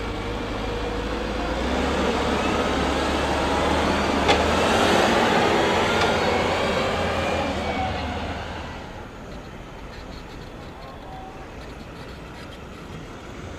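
A motor vehicle passing in street traffic, its noise and engine rumble swelling to their loudest about five seconds in, then fading after about eight seconds to a lower steady street noise. There is a single sharp click near the middle.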